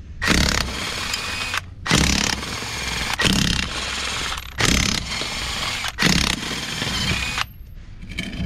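Cordless impact wrench hammering wheel lug nuts loose on a flat swather tire: about five bursts, each a second or so long, with short pauses between.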